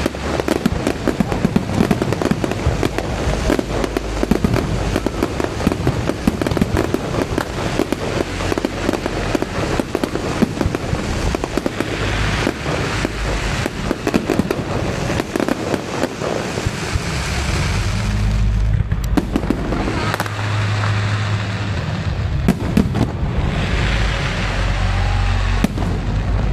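Aerial fireworks going off in quick succession: dense, rapid crackling and popping from many bursts at once, with deep booms growing heavier in the latter part.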